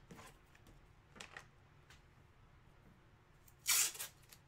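Hands handling a white cardboard box: a few faint taps, then a brief rustling scrape near the end.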